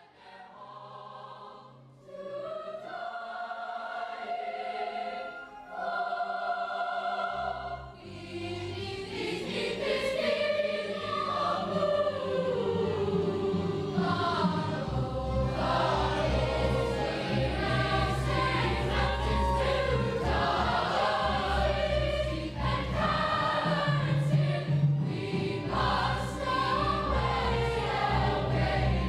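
Young voices of a youth opera chorus singing, accompanied by a small orchestra. It opens with two held chords, then moves into a fuller passage with moving melodic lines, and a low bass comes in about halfway.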